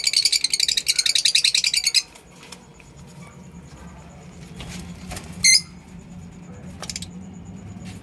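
Lovebirds chattering in a dense, rapid, high-pitched twitter that stops about two seconds in. After that come a few faint clicks and one short sharp chirp.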